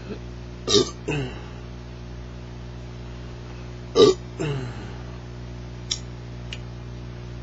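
A man burping twice, about three seconds apart; each burp starts abruptly and trails off falling in pitch. A steady electrical hum runs underneath.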